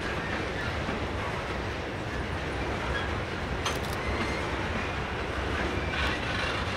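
Norfolk Southern freight train's boxcars rolling past: a steady rumble of steel wheels on rail, with a single sharp clank a little past halfway.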